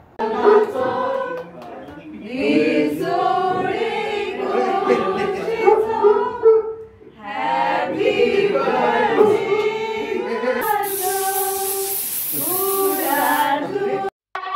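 A group of people singing a birthday song together around the cake, with a loud hiss over the singing for a few seconds near the end.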